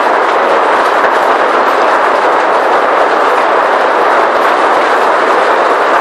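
Heavy hail falling, hailstones hitting a car's bonnet, roof and windscreen: a loud, steady clatter of countless small impacts.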